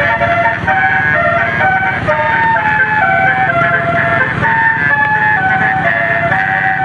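Bus telolet horn playing a melody: several horn tones sounding together and stepping from note to note a few times a second, over a steady low rumble.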